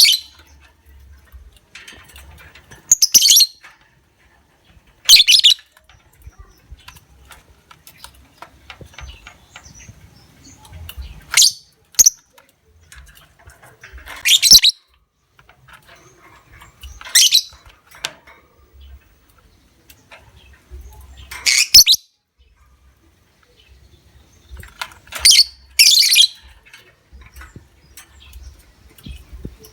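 Lovebird giving shrill, chattering 'ngekek' calls in short bursts, about ten of them a few seconds apart.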